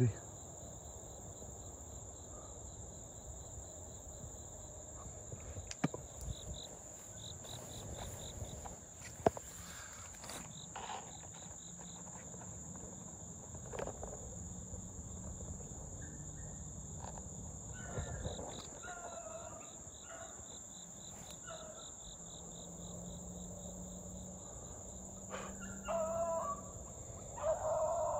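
Beagles baying faintly while running a rabbit, their calls coming more often toward the end. Under them runs a steady high insect drone with a rhythmic, pulsing cricket chirp.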